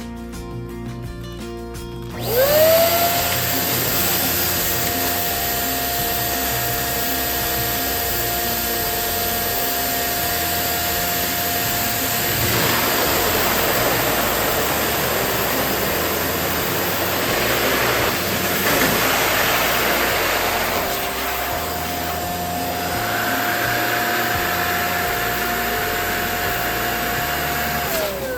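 Electric balloon pump switching on about two seconds in with a quickly rising whine, then running at a steady pitch as it inflates a balloon, and winding down with a falling pitch near the end.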